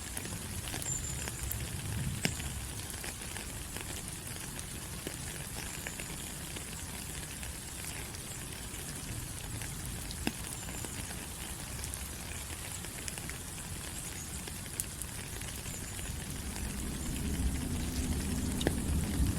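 Steady rain falling on rainforest leaves, a dense hiss with scattered sharp drip ticks. A low rumble swells near the end.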